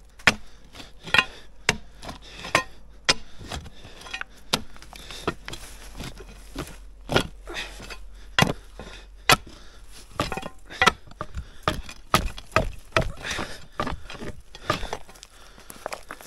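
A hand digging tool striking rock and packed earth over and over, knocking away loose stones overhead. The strikes come unevenly, roughly one or two a second, some much sharper than others.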